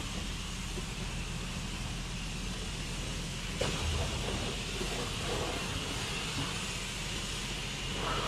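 Steady hiss of a self-serve car wash's high-pressure rinse wand spraying water onto a truck, over a low steady hum from the wash pump. A brief click about three and a half seconds in, as a dollar bill goes into the pay machine's bill slot.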